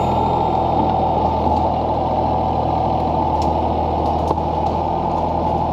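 Tractor-backhoe's diesel engine running steadily with a low, even hum.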